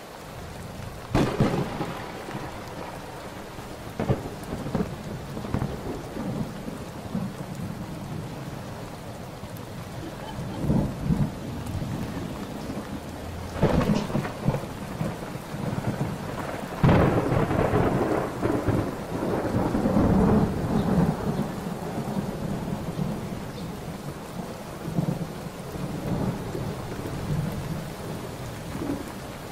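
Steady rain with a thunderstorm: sharp cracks of thunder about a second in and again around 14 and 17 seconds in, with rolling rumbles between them.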